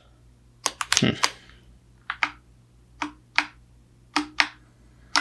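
Mechanical keyboard keys pressed one at a time: sharp separate clicks, mostly in pairs roughly once a second, some leaving a short low ring.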